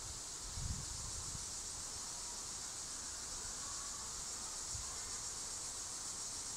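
Steady high-pitched chirring of insects, with a soft low thump just under a second in.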